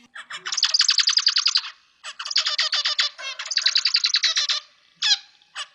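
Zebra finch singing: phrases of rapid repeated notes, about a second or so each, broken by short pauses, with a few single calls just before a new phrase starts near the end.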